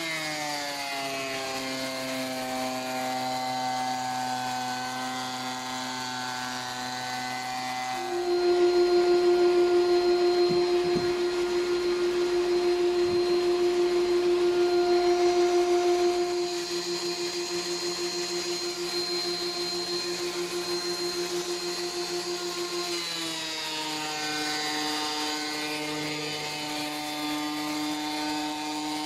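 DeWalt thickness planer running, its motor note dropping in a smooth glide as a Sapele board feeds into the cutter block, just after the start and again after about 23 s. From about 8 s to 16 s it gives a louder, higher steady whine.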